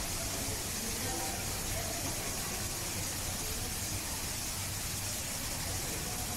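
Steady background hiss with a low hum underneath and faint, indistinct voices.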